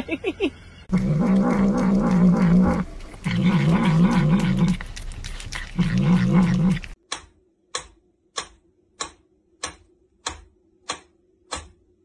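A cat yowling in three long, loud, wavering calls. They are followed from about seven seconds in by a run of evenly spaced sharp clicks, about one and a half a second, over a faint steady hum.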